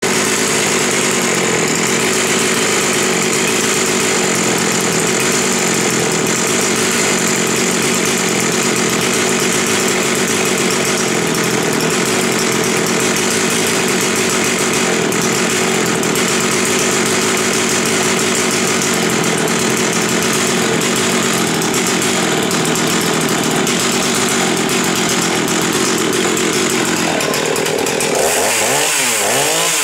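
Modified Husqvarna 359 chainsaw with a high-output dual-port muffler, running loud and steady at high speed. Near the end its pitch swings rapidly up and down.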